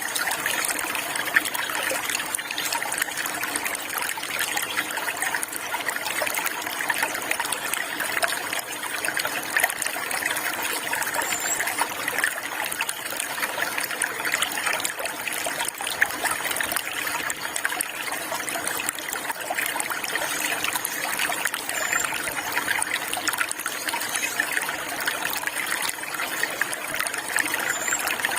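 Water flowing and trickling steadily, like a small stream, with a few faint high bird chirps now and then.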